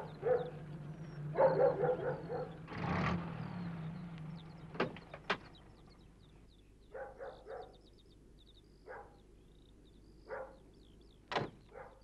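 Farmyard sound effects: a steady low hum with some louder noisy sounds that ends about five seconds in, two sharp clicks, then faint bird chirping and a few short knocks.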